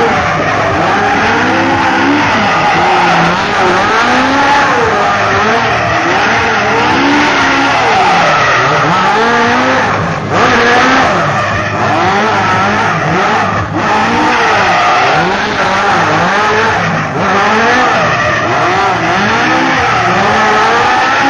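Vintage car doing donuts: its engine revs up and down over and over, rising and falling every second or two, over continuous tyre squeal from the spinning rear wheels.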